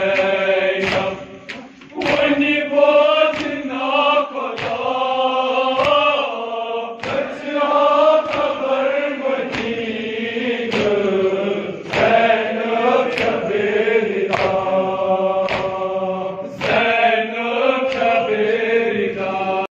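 Group of men chanting a Muharram nawha (lament) together, with sharp slaps of hands beating on chests (matam) landing every second or two. The singing breaks off briefly just under two seconds in, then resumes.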